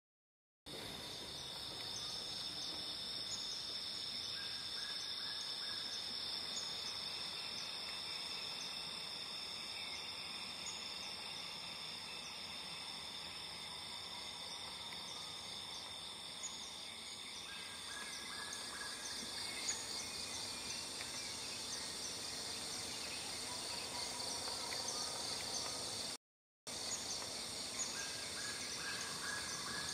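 Tropical forest insects droning in a steady high-pitched chorus of several layers, with a few faint short calls now and then. The sound cuts out completely twice for under a second, at the start and about 26 seconds in.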